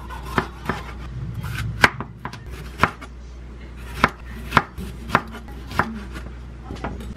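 Chef's knife slicing a red bell pepper into rings on a wooden cutting board, the blade knocking on the board about ten times at an uneven pace.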